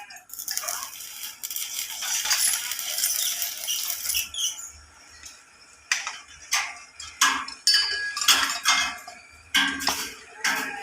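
Electric arc welding on a steel frame, a dense crackle for about four seconds, then a string of sharp metal clinks and knocks that grow louder near the end.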